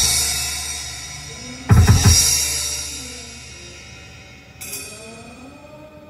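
Drum-solo recording played through a car audio system inside the cabin: a quick cluster of heavy drum hits with a cymbal crash about two seconds in, the crash ringing away slowly, then a lighter cymbal hit near five seconds.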